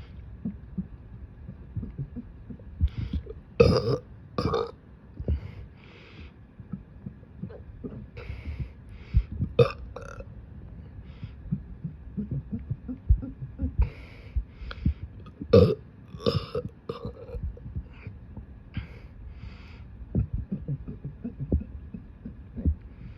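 A person burping over and over: a long run of short, brassy belches, the loudest about four seconds in and again around fifteen seconds, with soft low thumps between them.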